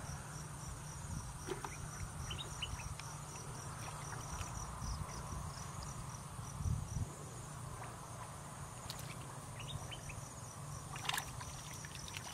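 Insects chirping in a rapid, even pulse that stops for a couple of seconds midway and then resumes, over a steady high whine and a low rumble. A few short splashes and squelches come from hands and legs moving through muddy water, the loudest near the end.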